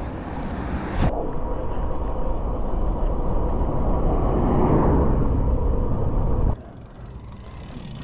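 Steady wind rumble on the microphone with road noise while riding a tandem bicycle, swelling in the middle and cutting off abruptly about six and a half seconds in.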